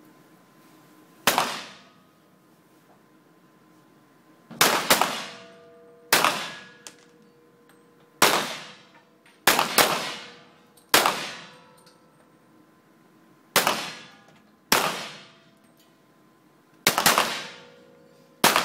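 Centerfire target pistols firing single shots from several shooters on the line, about a dozen shots at irregular intervals, a few nearly overlapping, each followed by a ringing echo off the indoor range.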